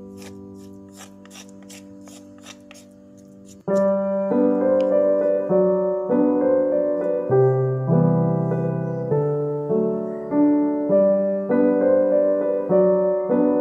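Background piano music. It is quiet at first under a run of light, evenly spaced clicks, then much louder piano music begins about four seconds in.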